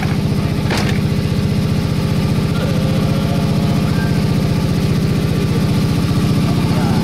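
A boat's engine running steadily with an even, fast low throb, and a short sharp click about a second in.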